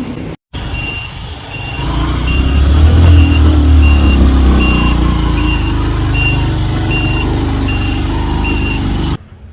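Road vehicle on the move, with a heavy low rumble of wind buffeting the microphone and a short high beep repeating about every 0.6 s. The sound cuts off abruptly near the end.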